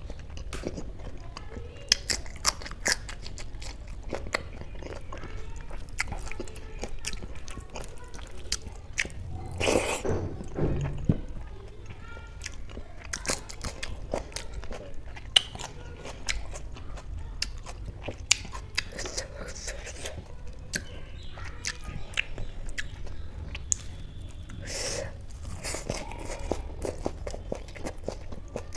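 Close-up chewing and mouth sounds of a person eating rice and kadhi with her fingers: many small irregular clicks with occasional crunches.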